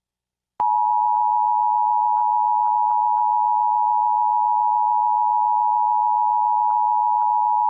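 Emergency Alert System two-tone attention signal, 853 Hz and 960 Hz sounded together. It starts abruptly about half a second in and holds steady and loud, marking the start of an EAS Required Monthly Test before the voice message.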